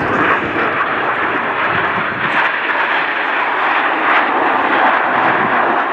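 Jet noise from a formation of Aermacchi MB-339 trainers, each powered by a single Rolls-Royce Viper turbojet, flying past: a loud, steady rushing sound with no distinct pitch.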